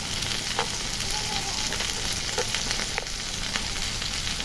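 Diced vegetables frying in oil in a wok: a steady sizzle with a few faint crackles.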